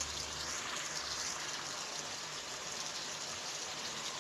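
Chicken karahi bubbling and sizzling steadily in an oily tomato-and-yogurt gravy in a pan on the stove.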